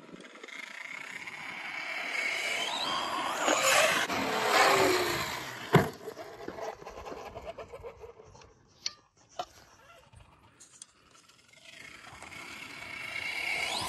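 Traxxas radio-controlled truck running on dirt: its motor whine rises in pitch and level as it speeds up and comes closer, then drops in pitch as it passes. A sharp knock about six seconds in, with two smaller knocks a few seconds later, and the whine builds again near the end.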